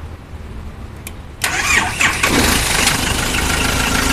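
A 2.7-litre diesel engine, cranked on a pocket jump starter's power alone with its own battery disconnected, turns over suddenly about a second and a half in and catches within about a second, then settles into a steady idle.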